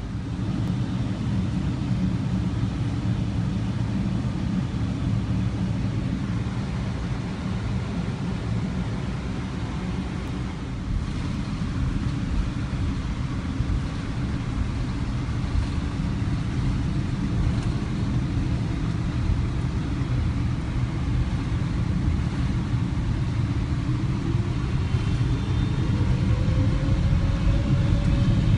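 Steady low rumble of a Boeing 777 taxiing, heard inside the cabin. About 23 seconds in, a whine begins rising steadily in pitch and the overall noise grows louder as the engines spool up for the takeoff roll.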